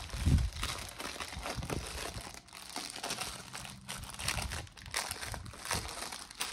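Clear plastic wrapping on a makeup brush bag crinkling as it is handled and pulled open, with a dull thump at the start.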